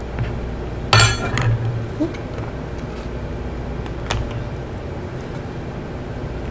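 Takeout containers and tableware handled on a table: a sharp clink about a second in and a lighter click about four seconds in, over a steady low hum.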